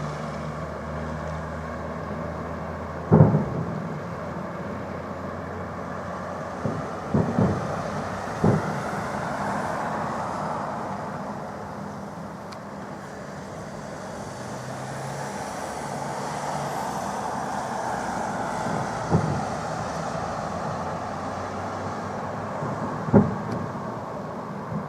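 Fireworks salute booming: a handful of sharp, separate bangs at irregular intervals, a cluster of three about seven to eight seconds in, and the loudest about three seconds in and near the end, over a steady background rumble.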